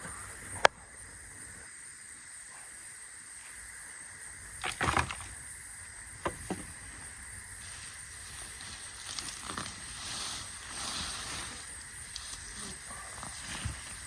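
Rustling and scraping in garden soil from potato plants being pulled and potatoes picked by hand, with a sharp knock about half a second in, a cluster of knocks around five seconds and two smaller clicks just after.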